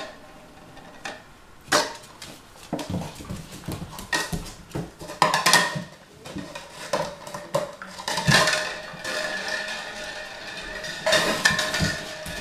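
A puppy chewing and pushing a plastic cup around a hard kitchen floor: irregular crackling and clattering of the plastic, with knocks and scrapes against the floor.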